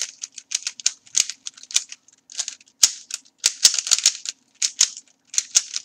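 Plastic Rubik's Cube being scrambled by hand: quick, irregular clicks and clacks as its faces are twisted, several turns a second.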